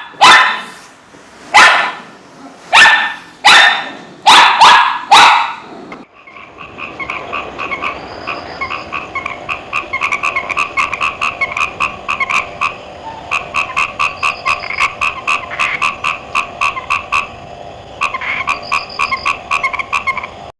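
A dog barking loudly several times, then a cut to a chorus of frogs croaking in quick, rapid pulses that come in long bouts with short pauses.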